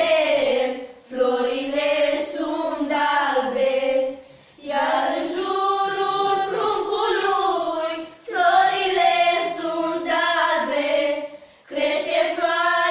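A group of girls singing a traditional Romanian Christmas carol (colind) without accompaniment, in phrases of three to four seconds with short breaks for breath between them.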